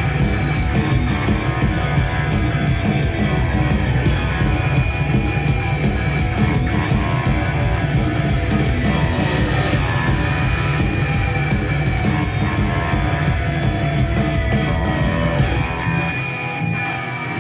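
Live rock band playing loudly through a concert PA, heard from the audience: electric guitars, drum kit and keyboards. Near the end the deep bass drops out briefly.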